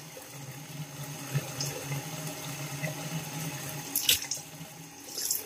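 Bathroom tap running into the sink, with a couple of brief splashes near the end.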